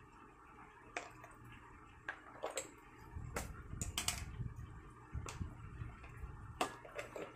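Oyster-sauce stir-fry simmering in a non-stick pan: scattered soft pops and clicks from the bubbling sauce, some in quick clusters, over a low rumble in the middle.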